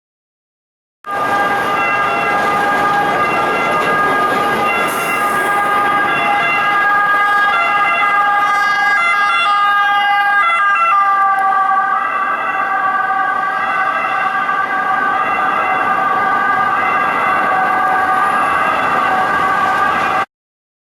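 Peugeot Boxer ambulance's two-tone siren wailing as the ambulance drives past, with road noise underneath. The siren's pitch drops slightly about eleven seconds in as it goes by. The sound cuts in suddenly about a second in and cuts off abruptly near the end.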